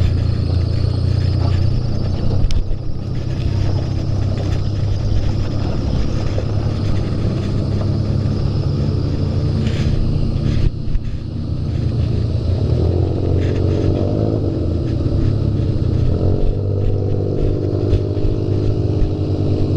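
Off-road buggy engine running under way: a steady low rumble with a few knocks, and from a little past halfway an engine note whose pitch rises and falls.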